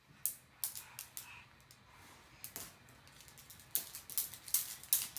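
Irregular light clicks and clatters, a few scattered at first and then coming thicker and louder near the end.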